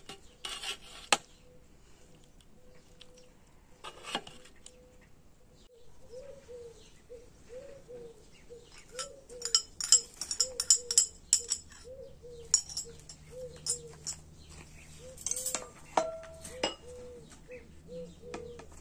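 Serving utensils clinking against a metal pot and china dishes in short clusters of sharp clicks. From about six seconds in, a bird repeats a short low call about every 0.7 seconds in the background.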